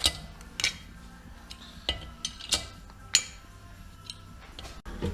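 Hand tools and small metal engine parts clinking and tapping during workbench disassembly: about six sharp, irregular metallic clicks over a few seconds.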